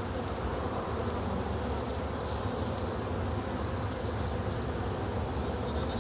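Many honey bees buzzing in a steady hum around an opened hive.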